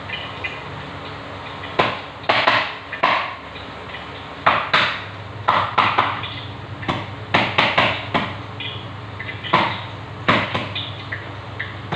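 Kitchen cookware and utensils being handled: irregular knocks and clatters with short scraping rattles in between.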